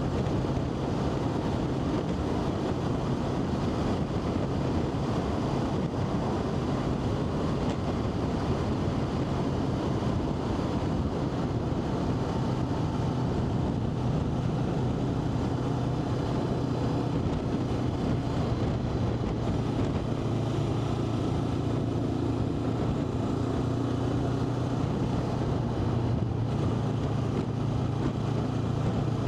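A vehicle driving at a steady speed: a constant low engine drone with road and wind noise.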